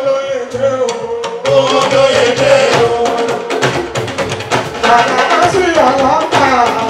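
Live music: a man singing into a microphone over drums and percussion.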